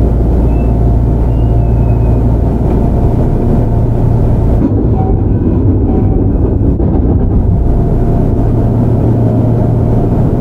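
Kintetsu 5800 series electric train running, heard from inside a motor car: a steady, loud rumble of wheels on rail and traction motors driven by a Mitsubishi GTO-VVVF inverter. The higher hiss fades for a few seconds about halfway through.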